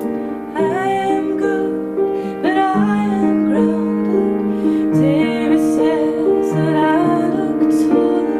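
A woman singing a melody to her own grand piano accompaniment, the piano holding long chords that change every second or two.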